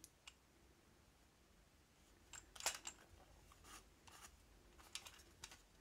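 Faint clicks and light rubbing of a plastic TDK D90 cassette shell being handled in the fingers, a few scattered taps, the loudest a little before three seconds in.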